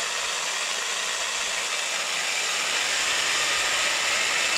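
Corded electric drill running steadily with a small bit, boring into a hand-held metal bracket; it stops suddenly at the end.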